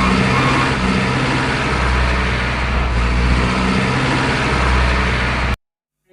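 Heavy diesel engine running steadily at a low, even drone. It cuts off abruptly near the end.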